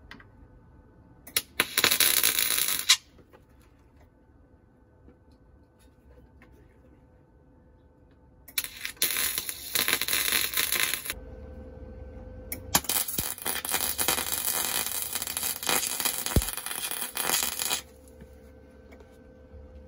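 Electric arc welder tack-welding steel cross braces into a car's floor pan: three runs of crackling and sizzling arc, the last and longest lasting about five seconds, with a faint steady hum between them.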